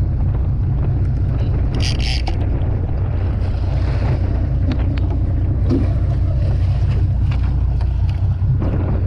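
Boat's engine running steadily under a constant low rumble, with wind buffeting the microphone. A short, sharp noise stands out about two seconds in.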